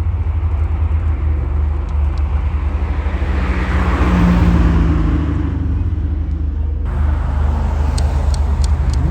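Car engine running with a low, pulsing rumble; a louder rushing noise swells and fades in the middle, and the sound changes abruptly near the end.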